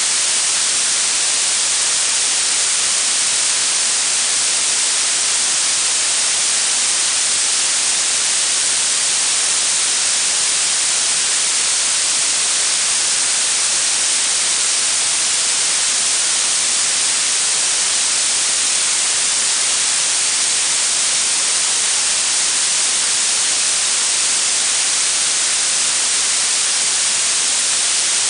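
Blue noise: a steady, even hiss weighted toward the high end, with no change in level or character.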